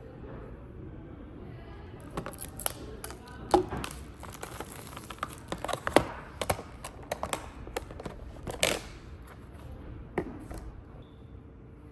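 Irregular clicks and taps, several a second, from about two seconds in until near the end.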